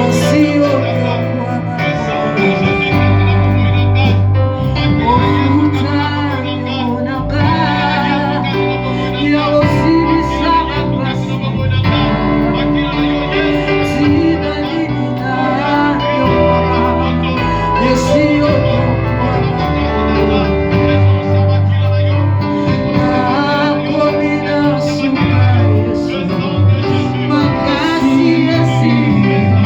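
Church worship music: voices singing over instrumental accompaniment with a low bass line that moves from note to note.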